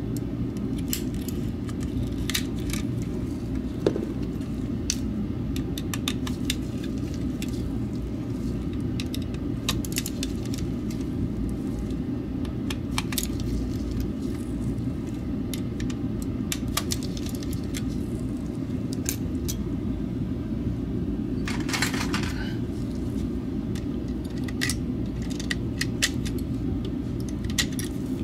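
Scattered small clicks and ticks of hard plastic parts and a small metal tool as a Logitech G Pro Wireless mouse's shell is taken apart by hand, with a denser run of clicks about 22 seconds in. A steady low hum runs underneath.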